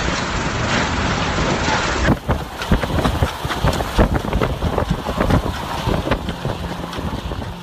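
Storm wind rushing and buffeting the microphone. About two seconds in, the audio cuts to a second recording of wind with many sharp gusts and knocks.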